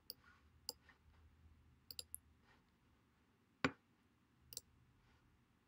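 Computer mouse clicking, about seven sharp single and double clicks at irregular intervals with the loudest about two-thirds of the way in, against near silence.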